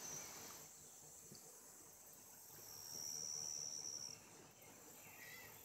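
Faint, steady high-pitched insect trilling, with one louder trill lasting about a second and a half in the middle.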